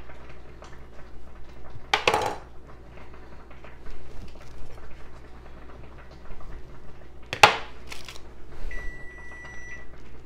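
A kitchen knife clicking and tapping on a plastic cutting mat as chunks of smoked sausage are slit partway, with two louder clatters about two seconds in and past seven seconds. Near the end a kitchen timer starts beeping with a steady high tone.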